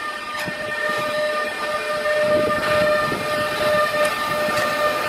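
Intermodal freight train of container wagons rolling past behind a Bombardier TRAXX MS2e electric locomotive. The wheels rumble on the rails with scattered sharp clicks over rail joints, and a steady high-pitched whine runs along with it. The rumble grows louder about two seconds in.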